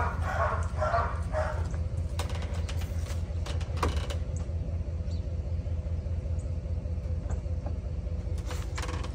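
A vehicle engine idling, a steady low rumble with an even pulse, with a few sharp clicks around two and four seconds in.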